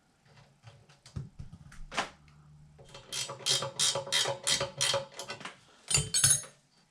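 Ratchet wrench clicking in a quick even run, about four clicks a second, while a chain tensioner bolt is tightened on a mini bike frame, with a few metal knocks before it and a louder clatter of tools near the end.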